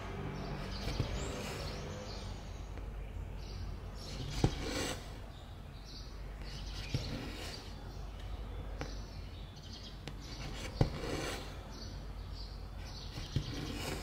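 Cross-stitch needle pushed through the fabric with a sharp click about every two to four seconds, about five times, each followed by a short hiss of silk thread drawn through. A low steady hum runs underneath.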